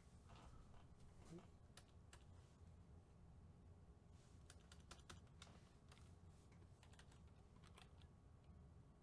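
Near silence with faint, scattered clicks and taps, most of them about halfway through, over a low hum.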